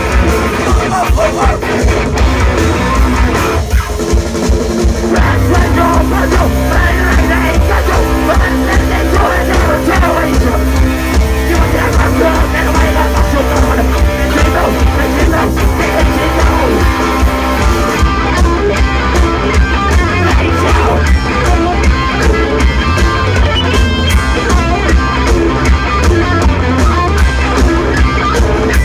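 Hardcore punk band playing live and loud: distorted electric guitars, bass and drum kit, with vocals. There is a short break about four seconds in before the full band comes back in.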